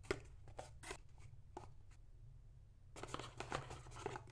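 Cardboard box and plastic speed cubes being handled: a sharp tap as the box lid is opened, a few light clicks, then a short patch of soft rustling and plastic clatter about three seconds in as a pair of glued-together 3x3 cubes is lifted out of the box.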